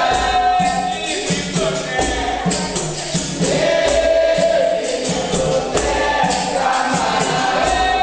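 Capoeira roda music: a group sings the chorus in unison over a steady beat of drum and pandeiro.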